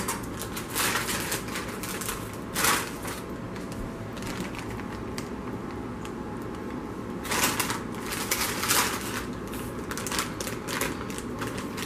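Crinkling of a metallized plastic snack bag as it is handled and squeezed, coming in irregular crackly bursts; the bag holds noodles and cheese curls soaking in hot water and is being massaged.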